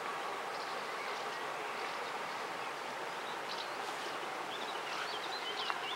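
Birds chirping over a steady outdoor hiss, the calls coming more often in the second half.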